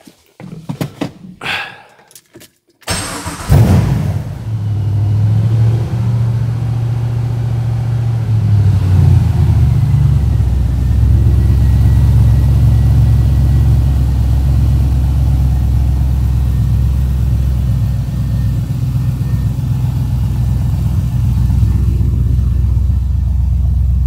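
A few clicks, then the LS V8 in a Porsche 911, run by a Holley Dominator EFI, catches almost at once about three seconds in and flares. It holds a fast idle for several seconds, drops to a lower idle about ten seconds in, and idles steadily from there.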